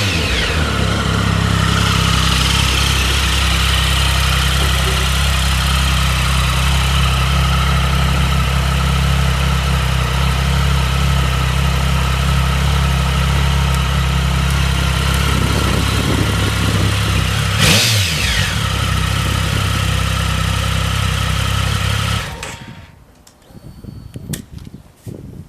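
Triumph Speed Triple's inline three-cylinder engine idling steadily, given one quick throttle blip about 17 seconds in, then shut off near the end, leaving a few faint knocks. It idles and revs without abnormal noises, as the seller describes it.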